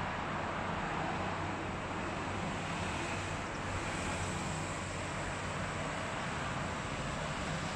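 Steady road traffic noise, with a low engine hum underneath.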